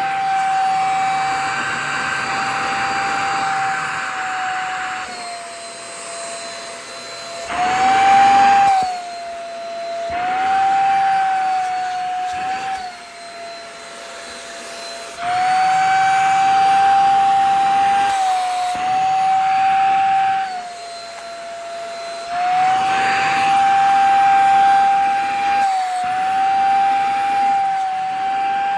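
Vacuum cleaner running, its motor whine dropping and rising in pitch several times while the rush of air swells and fades, as the suction pulls at a shirt.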